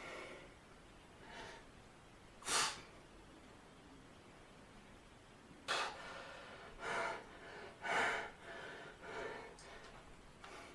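A man breathing hard in short sharp breaths while holding flexed bodybuilding poses, about eight breaths with a pause of about three seconds in the middle: the breathing of muscular exertion.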